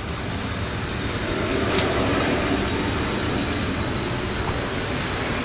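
The four turbofan engines of a Boeing C-17A Globemaster III running on the ground, a steady jet rumble that slowly grows louder. A brief sharp click about two seconds in.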